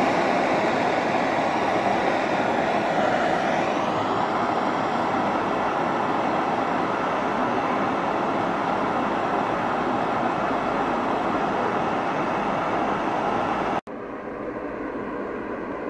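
Handheld gas torch burning with a steady, loud rushing hiss as it heats copper scraps in a small clay crucible to melt them. About 14 seconds in, the sound breaks off and a quieter, duller steady burner noise follows, from a gas torch firing a small canister-fed forge.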